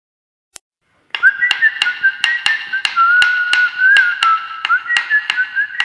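Outro music: a whistled tune over a steady beat of sharp clicks, about three a second, starting about a second in after a single click.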